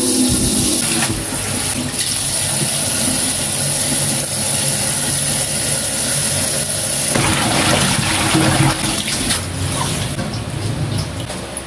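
Kitchen tap running into a stainless steel bowl of water in a sink, with leaves being swished and rinsed by hand in the water. The splashing grows louder about seven seconds in.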